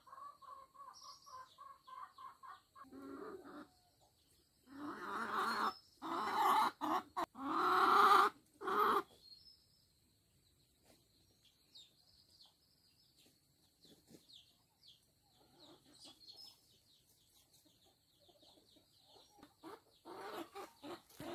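Chickens clucking and calling, with a run of loud calls from about five to nine seconds in and more near the end.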